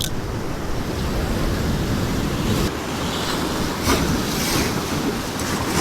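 Ocean swell washing and breaking over coastal rocks, a steady surf noise with a few louder surges about two and a half and four seconds in, and wind buffeting the microphone.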